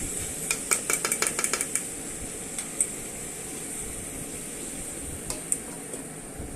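A utensil clinking and scraping against a frying pan in a quick run of strokes while stirring chicken, potatoes and onions, over a steady frying sizzle; a few single clinks follow later.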